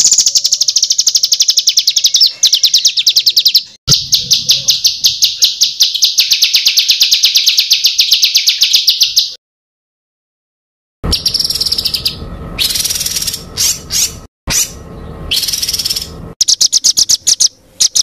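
Recorded songbird song used as masteran tutor audio: fast trills of rapidly repeated high notes. About nine seconds in it stops for a second and a half, then comes back as shorter, varied phrases broken by pauses.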